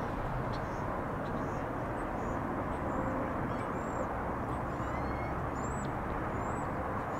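Outdoor ambience: a steady low rumble with faint, high, short bird chirps repeating in the second half.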